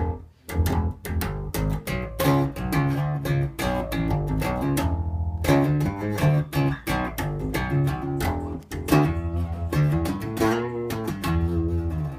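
Rickenbacker 4003 electric bass on both pickups (middle selector position), volume and tone full, through a Markbass amp with its EQ set flat: a run of plucked notes and short riffs, with a brief gap about half a second in and a note left ringing near the end.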